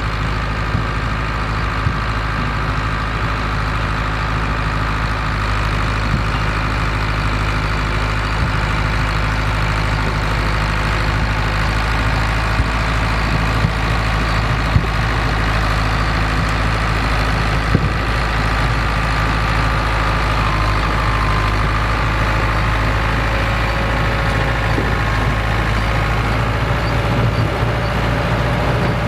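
Vintage farm tractor engine running steadily, with a few short sharp knocks here and there.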